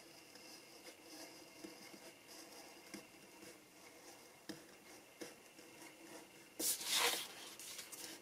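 Craft knife blade slowly cutting through a paper template on a cutting mat: faint scratching with a few small clicks. About seven seconds in, a louder, brief rustle of paper as the sheet is shifted.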